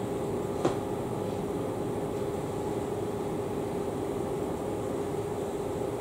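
Steady hum of room ventilation with a low steady tone through it, and one short click a little over half a second in.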